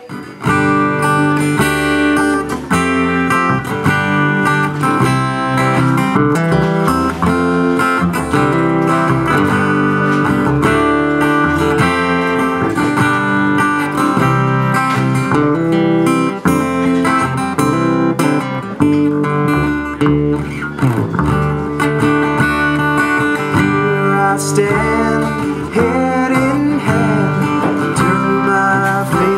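Acoustic guitar and plucked upright bass playing an instrumental passage together.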